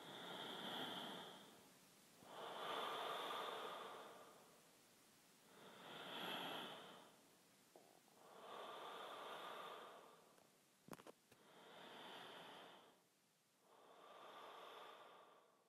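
Faint, slow breathing close to the microphone, six soft breaths spaced a couple of seconds apart, with a single sharp click about eleven seconds in.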